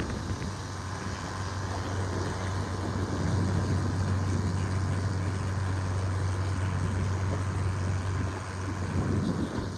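Small boat's engine running steadily with a low, even hum, over a steady rushing noise.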